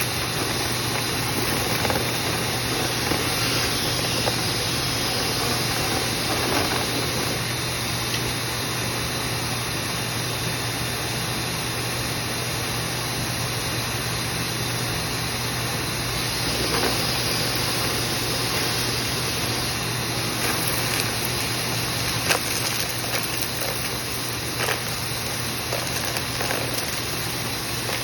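Vent-cleaning equipment running steadily: a continuous rushing noise over a low motor hum, with a few sharp ticks in the second half.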